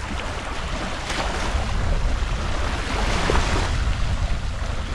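Small waves washing onto a pebble shore, swelling about a second in and again around three seconds in, with wind rumbling on the microphone.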